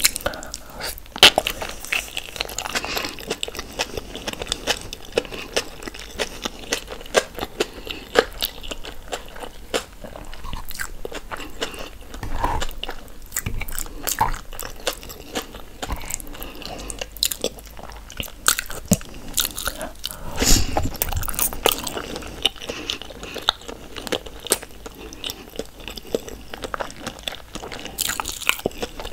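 Close-miked eating of a seafood boil in sauce: chewing, biting and lip-smacking, mixed with frequent short clicks and smacks as fingers pull mussels and other pieces from the bowl.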